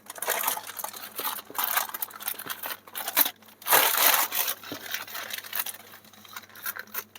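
Product packaging being cut and pulled open by hand: irregular crinkling and rustling in uneven bursts, the loudest about a second and a half in and again near four seconds.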